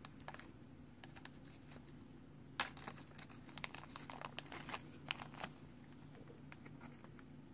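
Small clear plastic zip-lock bag crinkling as it is handled and opened, in scattered faint crackles with one sharper crackle about two and a half seconds in.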